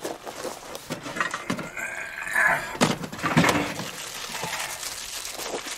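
Rummaging in a cardboard box in a car trunk: irregular rustling with scattered knocks and clunks as items are handled.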